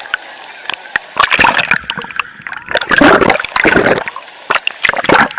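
Water splashing and sloshing in irregular loud bursts: about a second in, around three seconds in and again near the end, with sharp clicks in between.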